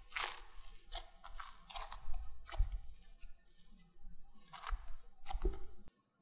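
Hands kneading sticky yeast dough in a glass bowl, just brought together with no dry flour left: wet squelching and tearing in irregular strokes, a few each second, with a few low thumps of the dough against the bowl. The sound cuts off suddenly near the end.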